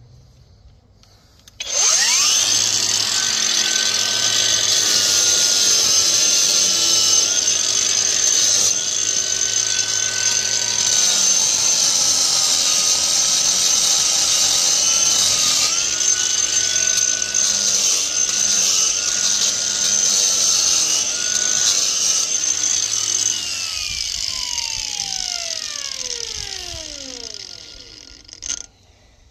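A power grinder starts about two seconds in and runs steadily with a high whine as it grinds down the concrete benching of a manhole channel, taking back a narrowing that causes blockages. Near the end it is switched off and winds down, its whine falling in pitch.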